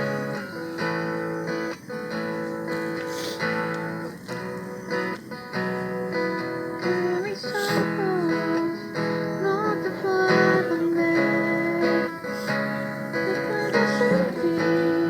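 Acoustic guitar strumming chords as the lead-in to a Spanish worship song, with a sliding melodic line joining about seven seconds in.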